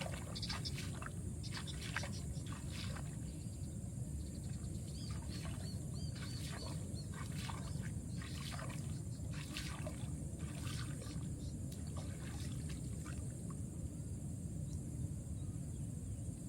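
Water dripping, trickling and splashing in short irregular bursts around a small boat, over a steady low rumble.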